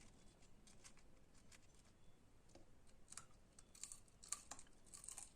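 Faint crisp crunching and crackling of crispy fried french fries, a few scattered crackles that grow more frequent and louder from about three seconds in.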